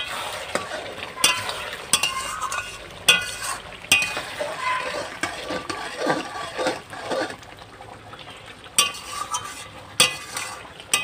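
Metal spatula stirring a thick chicken curry in a metal kadai, scraping and knocking against the pan about eight times with short metallic rings, over the sizzle of the gravy cooking down uncovered.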